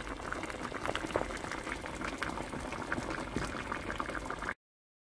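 Spicy tofu-and-tuna braise boiling in a pot, its thick red broth bubbling with a dense, steady crackle of popping bubbles. It cuts off suddenly near the end.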